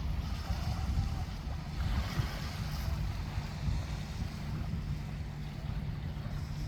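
Sea waves washing over a beach of round pebbles (mongdol), swelling about two seconds in, with wind buffeting the microphone.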